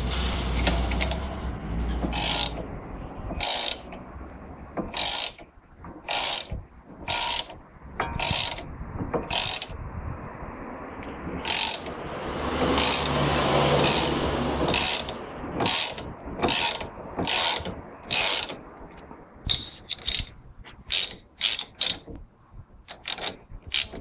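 Ratchet wrench clicking in repeated short strokes as it turns the screw of a C-frame bearing press on the front wheel hub, about one stroke a second and quicker near the end. A longer continuous stretch of noise comes about halfway through.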